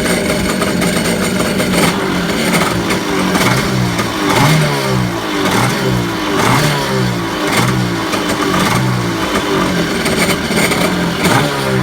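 Kawasaki 550SX jet ski's two-stroke twin engine running. After about two seconds it is blipped on the throttle roughly once a second, each rev rising and falling back. This is its first run after 21 years in storage.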